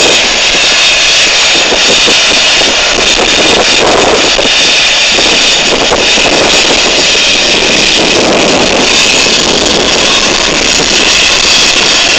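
Air ambulance helicopter running on the ground: a loud, steady turbine whine with rotor noise that swells and fades a little.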